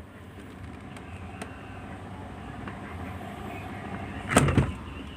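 LG refrigerator door being worked: a few faint clicks, then a loud door thud about four seconds in with a short rattle straight after.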